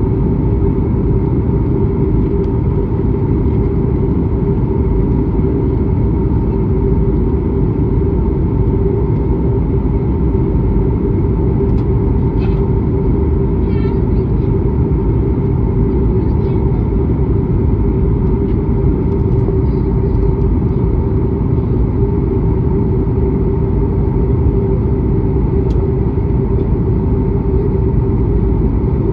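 Airliner cabin noise: the steady drone of the engines and rushing air heard from inside the passenger cabin in flight, with an even hum running through it.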